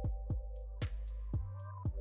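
Background electronic music with a steady beat: a kick drum about twice a second, hi-hat ticks between the kicks, and held synth notes.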